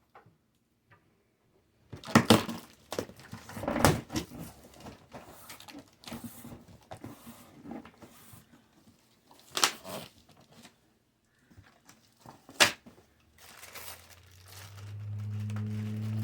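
Heater's cardboard box and packing being opened and unpacked: cardboard and wrapping tearing and crinkling, with several loud sharp rustles. A low steady hum starts near the end.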